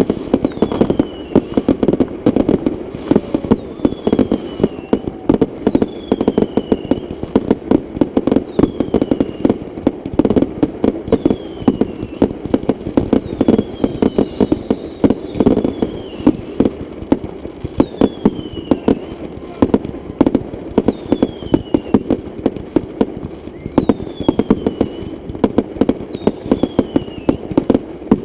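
Fireworks going off in a dense, continuous barrage of bangs and crackles, many per second. A short, high, falling whistle recurs about every two seconds.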